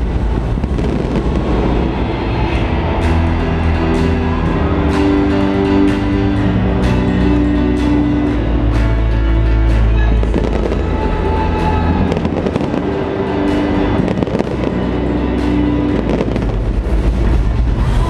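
Stadium fireworks display: sharp bangs every second or so over loud music with a heavy low rumble.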